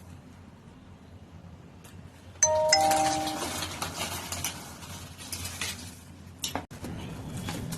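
A two-note doorbell chime rings out about two and a half seconds in, followed by a few seconds of rustling and clatter.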